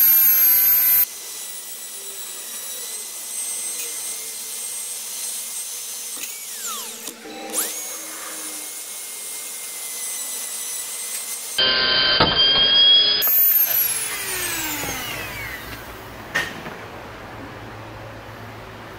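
Dremel rotary tool with a cut-off wheel grinding through the steel anti-theft breakaway bolt of a Honda CR-V ignition assembly: a high-pitched whine that jumps in loudness between stretches of cutting. About two-thirds through, its pitch falls away as the tool spins down, followed by a sharp click.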